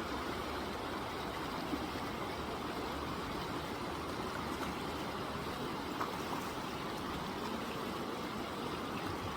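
Steady rushing of a river's flowing current.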